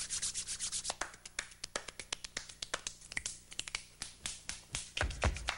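Finger snapping and hand clicks played as body percussion in a rapid, uneven rhythm of sharp clicks. Deep thumps join about five seconds in.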